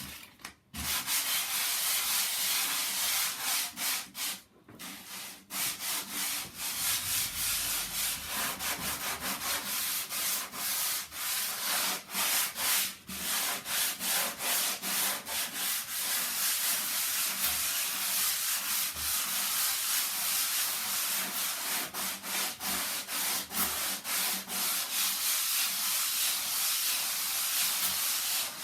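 Sandpaper rubbed by hand over a surface in repeated strokes, a steady rasping hiss broken by brief pauses, with a longer break about four and a half seconds in.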